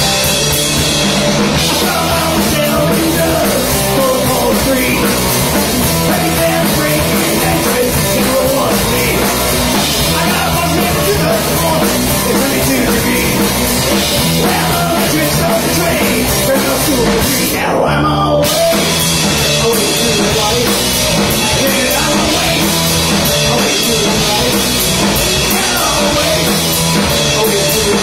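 Live punk rock band playing loud: electric guitars over a drum kit.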